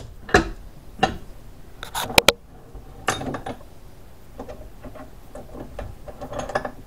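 Metal clanks and clicks from a steel bench vise being loosened by hand to release a head bolt. There are several sharp knocks, the loudest a close pair a little over two seconds in, then lighter clicks.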